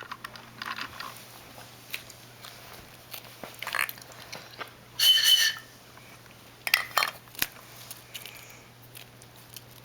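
Plastic toys and surprise eggs being handled on a tabletop: scattered light clicks and knocks, with a louder half-second rustle or clatter about five seconds in and a few sharper clicks near seven seconds.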